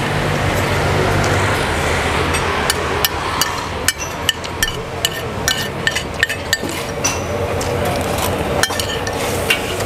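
A metal spoon clinking and scraping against a ceramic plate, with sharp, irregular clinks from about two and a half seconds in, over steady street traffic noise.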